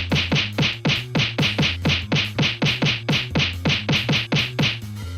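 Background music: a fast, even beat of about six drum hits a second over a held bass line, stopping shortly before the end.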